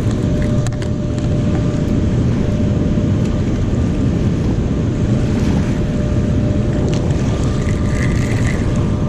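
Steady low rumble of wind buffeting the action-camera microphone, with a faint steady hum underneath.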